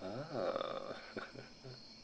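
A man's low, sly chuckle: one drawn-out voiced sound, then three short puffs. Behind it runs a steady high chirring of crickets as night ambience.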